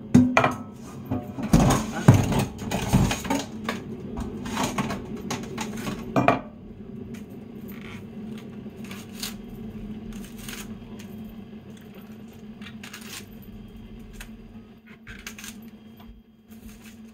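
Stainless steel pot and kitchen utensils clinking and knocking for the first six seconds or so, followed by softer scattered clicks as a large green onion is peeled and trimmed at the sink. A steady low hum runs underneath.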